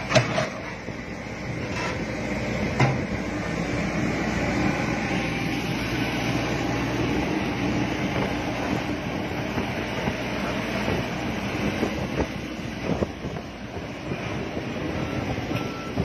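Komatsu PC70-8 excavator travelling on its steel tracks: a steady rattling clank of the track chain over rollers and sprockets with the diesel engine running, and a few sharp knocks, near the start and about three seconds in.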